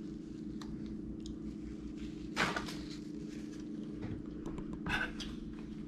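Brief handling noises at the table, twice, about two and a half and five seconds in, with a few faint clicks, over a steady low hum.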